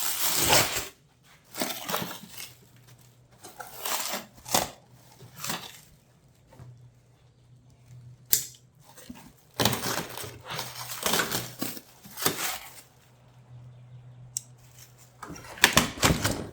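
Rustling and crinkling of packing material as the contents of a sawmill shipping crate are handled, in irregular bursts with quiet gaps and a sharp click about halfway through.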